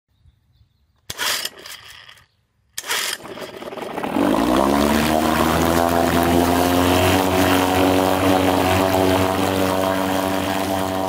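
1972 Johnson 4 hp two-stroke outboard being pull-started: a first burst about a second in dies away, then it fires on the next pull and settles into a steady, even run. Its propeller churns the water in a test tub.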